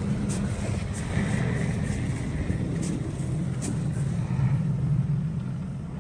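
Engine of a snow-removal vehicle running steadily with a low rumble, with a few short knocks over it.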